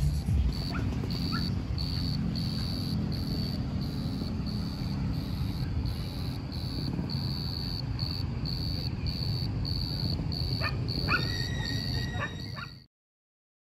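Insect chirping in an even rhythm of about two chirps a second, high-pitched, over a low background rumble. A few short barks come in near the end, and then the sound cuts off suddenly.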